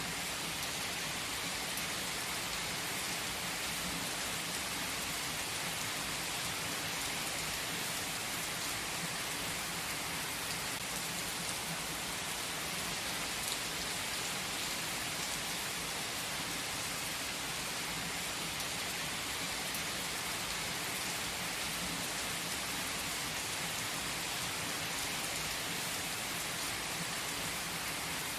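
A steady, even hiss of noise that does not change, brightest in its upper range.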